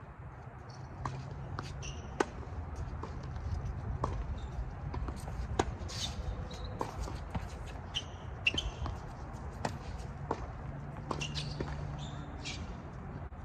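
Tennis balls struck by rackets and bouncing on a hard court during a rally: a string of sharp pops at an irregular pace, with a few louder hits.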